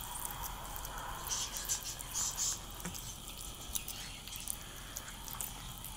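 Two cats eating wet canned cat food: wet smacking and chewing with small clicks, loudest in a cluster of crisp smacks between about one and two and a half seconds in.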